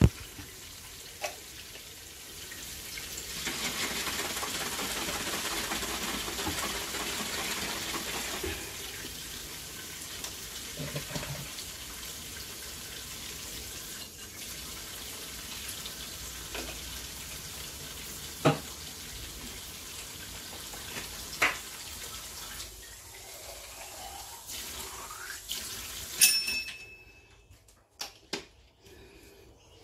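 Water running from a kitchen tap, steady, with a few sharp knocks along the way; the flow cuts off with a clack about three-quarters of the way through.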